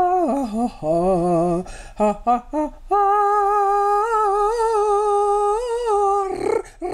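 Vocal warm-up exercises by one voice, hummed and sung. It opens with wavering trills and a dip to a low note, then a few short detached notes, then one long held note of about three seconds with a slight vibrato.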